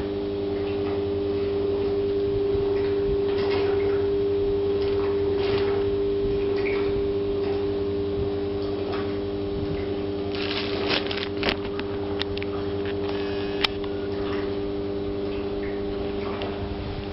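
Steady machinery hum made of several steady tones over a low rumble, with a few sharp clicks and knocks in the second half.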